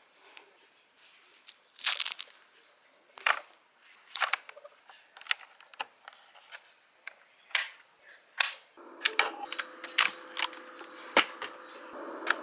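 Irregular sharp clicks and knocks, roughly one a second, from a mechanical keyboard and its packaging being handled. About nine seconds in, a steady hum with a few held tones joins the clicks.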